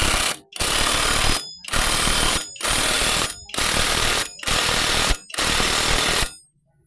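Cordless impact wrench hammering on the clutch bell nut of a GY6 scooter, tightening it in seven bursts of about a second each, with short pauses between them.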